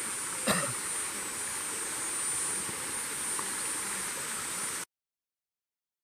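Insects keep up a steady high-pitched buzz over a constant rush of water from the stream in the ravine. About half a second in, a person briefly clears their throat. The sound cuts off abruptly near the end.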